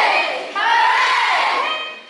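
A group of children shouting together in long drawn-out calls that rise and fall in pitch, two in quick succession.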